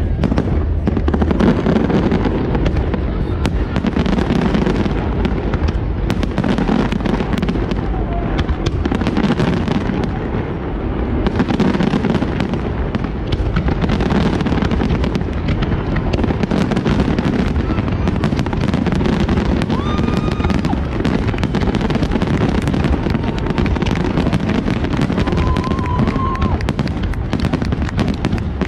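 Large fireworks display: aerial shells bursting in a dense, continuous barrage of overlapping booms and bangs, with no let-up.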